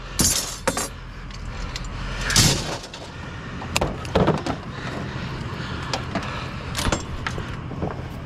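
Clinks, rattles and a few sharp knocks of small metal and plastic scrap being handled, over a steady low hum.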